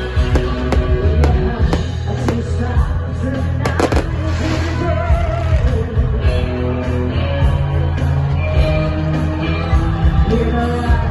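Fireworks bursting, a quick run of sharp bangs with most of them in the first four seconds, over loud pop music with singing.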